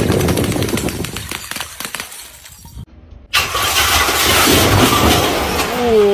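Bottles clattering and crashing, with glass breaking, dying away over the first few seconds. Then, about three and a half seconds in, a pressurized fire extinguisher bursts into a sudden, loud, steady hiss as it sprays paint over stacked jars.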